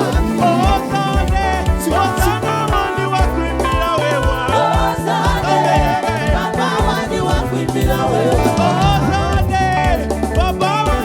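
Live gospel praise music from a band with singing voices over a strong, moving bass line and a steady beat.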